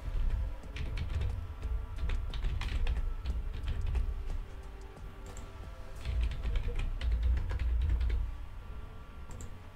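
Typing on a computer keyboard: a run of keystrokes for about four seconds, a short pause, then a second run for about two seconds that stops near the end.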